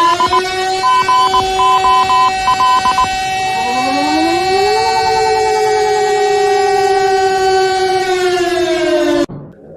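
Warning siren sounding a held tone, with a rapid beeping over the first three seconds. About three and a half seconds in, a second tone glides up to join it in a two-note chord. Both tones sag slightly and then cut off abruptly near the end.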